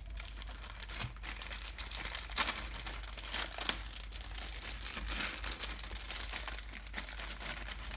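Crinkling and rustling of packaging as the harness kit is handled, with small sharp crackles throughout, over a low steady hum.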